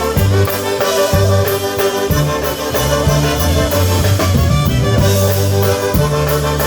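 Live polka band playing, with brass melody over a steady bass and drum-kit beat.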